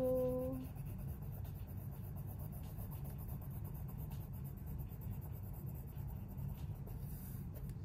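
Coloured pencil scratching on paper as dark brown shading is worked in with short strokes, over a steady low hum.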